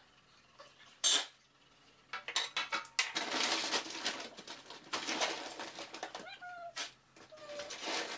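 Dry dog kibble being scooped and rattling in a metal dog-food bin, after a sharp clack about a second in. A golden retriever gives two short whines near the end.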